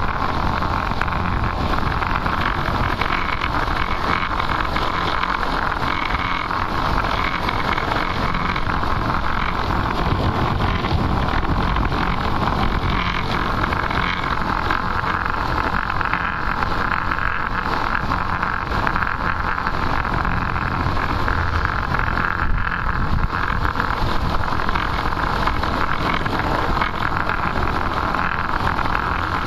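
Steady rush of wind over the microphone mixed with the rolling noise of longboard wheels on asphalt at downhill speed.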